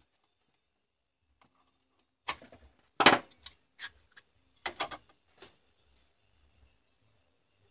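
A handful of sharp knocks and clatters of a hard plastic cordless-drill battery pack housing being handled and set down on a workbench, the loudest about three seconds in.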